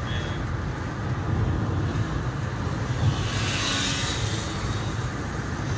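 Car driving, heard from inside the cabin: a steady low engine and road rumble, with a brief swell of hiss about three seconds in.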